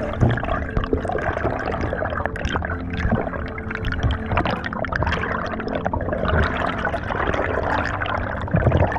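Water splashing and bubbling close to the microphone.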